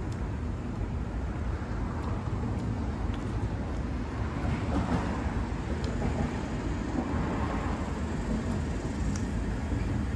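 Steady street traffic rumble with a slight swell around the middle, as if a vehicle passes, and a few faint clicks from the table.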